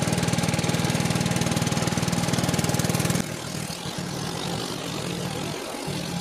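Motorboat engine running steadily with a fast, even chug. About three seconds in it drops suddenly to a quieter level, with water rushing along the hull.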